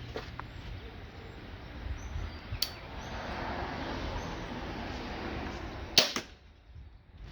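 Wicked Ridge Defender compound crossbow firing a bolt: one sharp crack about six seconds in, the loudest sound, with a lighter click about halfway through the first three seconds.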